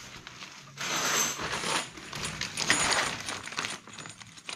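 Small copper pipe fittings clinking and rattling together as they are handled, starting about a second in and lasting about three seconds.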